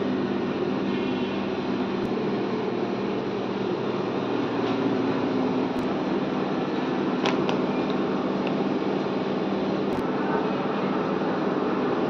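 Steady electric fan hum of running kitchen equipment, with a few short faint clicks.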